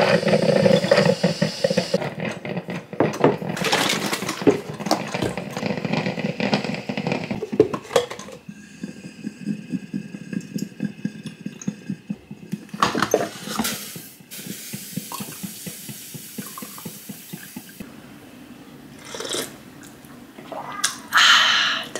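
Coffee and then creamer from a carton poured into a ceramic mug, with small clinks and knocks of the mug and kitchenware on the counter.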